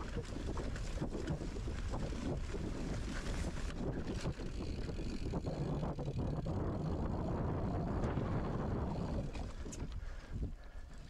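Wind buffeting a GoPro camera in its housing, mixed with the rattle and knocking of a Specialized Chisel Comp hardtail mountain bike over rough trail. It dies down near the end.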